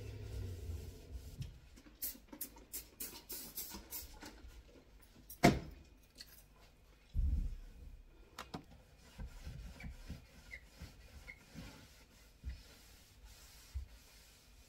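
Cloth wiping a stainless steel sink drainer in short rubbing strokes, with a sharp knock about five seconds in and a dull thump a couple of seconds later.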